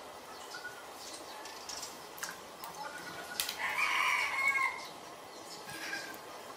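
A rooster crows once, about three and a half seconds in, a call lasting just over a second. Faint clicks and splashes come from raw shrimp being handled in a steel bowl of water.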